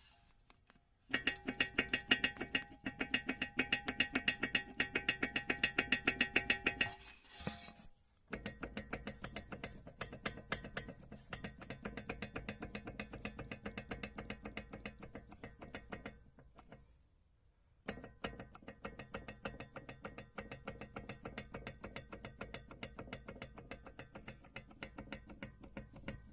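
Car suspension strut knocking under load: rapid, regular clicking knocks, several a second, in three runs broken by two short pauses.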